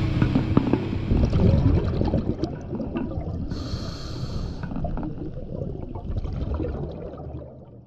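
Scuba diver's breathing heard through an underwater camera: bubbles crackling and gurgling, with one regulator hiss lasting about a second near the middle. It all fades out near the end.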